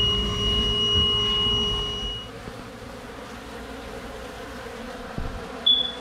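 A sustained chord of background music fades out about two seconds in, leaving a fainter steady buzz of honey bees. A short, loud high-pitched tone sounds near the end.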